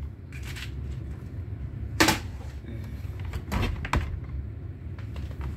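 A few sharp metallic clicks and knocks from screws and a screwdriver being worked on an amplifier's metal chassis. The loudest comes about two seconds in and two lighter ones about a second and a half later, over a steady low hum.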